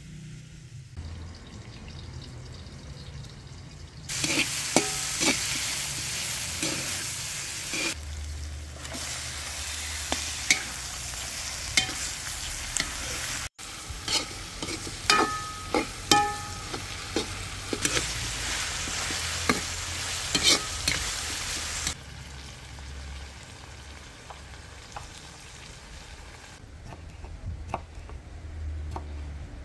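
Chopped onions sizzling loudly in hot oil in a large aluminium pot, starting about four seconds in, with the scrape and clack of stirring against the metal. The sizzle drops away after about twenty seconds, and near the end a knife chops tomatoes on a wooden board.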